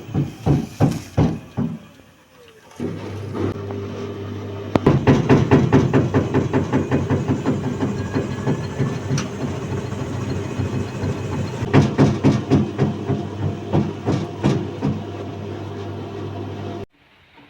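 Midea top-loading washing machine's drum knocking rhythmically as it spins up, hitting the transport-bolt bushings that were left in place. The knocks die away after about two seconds. The motor then starts humming, fast knocking comes back about five seconds in, and the motor cuts off suddenly near the end.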